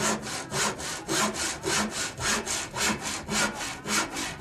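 Rhythmic saw-like rasping strokes, about three a second.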